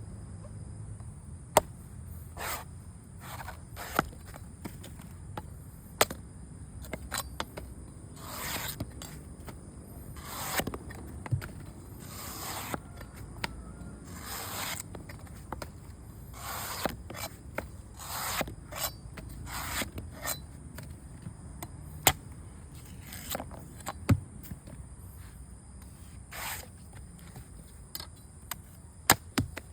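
Irregular scraping strokes, each lasting up to about a second, with sharp knocks and clicks scattered between them over a steady low hum.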